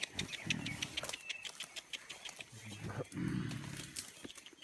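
Mountain gorilla giving two low grunts, a short one near the start and a longer, louder one about three seconds in, over rustling foliage and clicks of the camera being handled.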